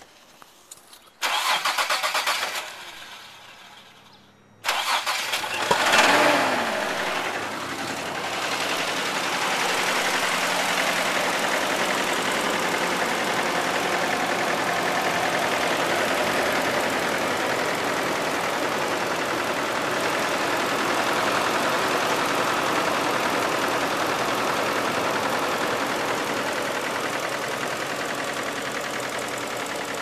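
2000 Isuzu Trooper's 3.5-litre V6 being started: a burst of cranking about a second in that dies away, then about four and a half seconds in it fires with a rise and fall in revs. It then runs steadily with the really loud knocking that is the fault being shown.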